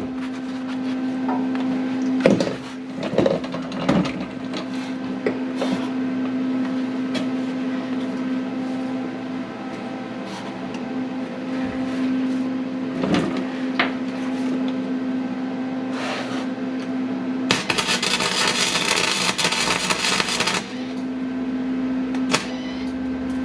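Welder humming steadily, with a few short clicks and bursts early on and one burst of arc noise lasting about three seconds about three-quarters of the way in. The welder is misbehaving, which the owner thinks is from overheating and needing to cool down.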